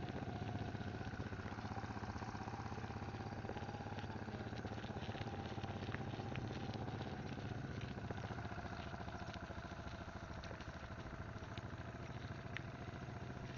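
Riding noise of a bicycle on a rough, muddy dirt track, picked up by the bike-mounted camera: a steady rumble with scattered knocks and rattles from the bumps.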